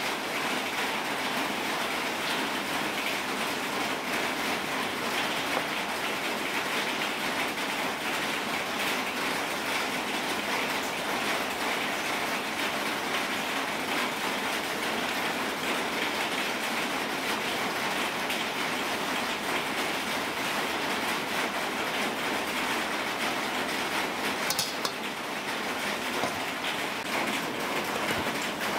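A steady, even hiss like falling rain, with faint light knocks from a cleaver slicing duck gizzards on a wooden chopping block.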